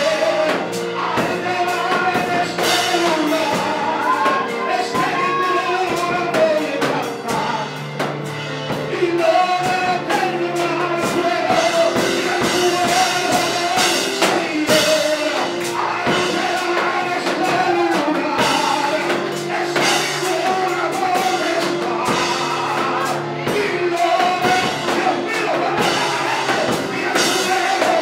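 A man singing a Spanish-language worship song through a microphone and PA, in long held, bending phrases, over a steady drum-kit accompaniment.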